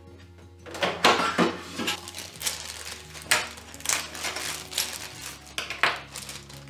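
Irregular sharp clicks, clinks and rustles of small hard objects being handled, over soft background music with held low notes.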